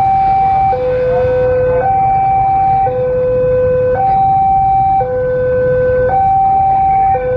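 Railway level-crossing warning alarm sounding a two-tone hi-lo pattern, the high and low tones alternating about once a second, with a low rumble underneath. It signals that a rail vehicle is approaching the crossing.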